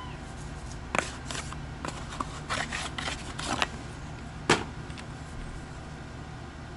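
Handling noises from a boxed drill chuck being turned over in the hands: scattered light clicks and rustles, with one sharper knock about four and a half seconds in, over a steady low hum.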